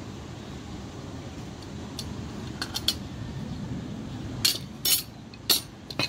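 Metal table knife clinking against a ceramic serving plate while a slice of leche flan is cut and lifted: a few faint clinks about two to three seconds in, then four louder, sharper clinks in the last second and a half, over a steady low background hum.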